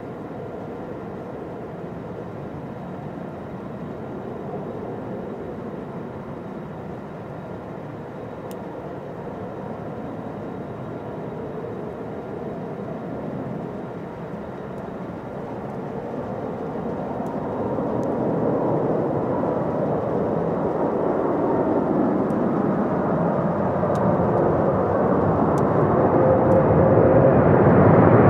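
Jet engines of a Singapore Airlines Airbus A330-300 (Rolls-Royce Trent 700s), a steady rushing roar that grows steadily louder as the aircraft comes closer.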